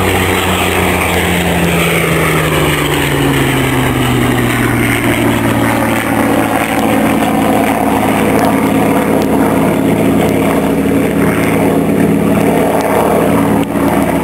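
Propeller aircraft's piston engine running loudly, its pitch sliding down over the first few seconds and then holding steady.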